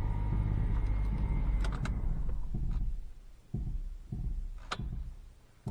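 Vehicle engine running with a steady low rumble that fades out about three seconds in, followed by a few dull thumps and a click.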